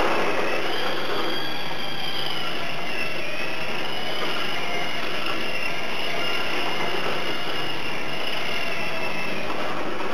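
Tamiya TT01D radio-controlled drift car's electric motor and gear drive whining over tyre noise, the pitch rising and falling with the throttle. Loudest right at the start as the car passes close.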